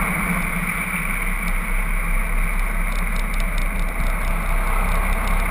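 Twin Yanmar diesel engines of a Stirling 34 raceboat running steadily at speed, mixed with the rush of wake water and wind on board.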